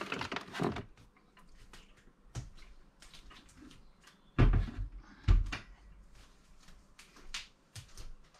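Nespresso Lattissima Pro capsule machine being gripped and lifted off a wooden worktop, with a short scraping rustle. About four and five seconds in come two heavy thuds, and lighter knocks and clicks follow.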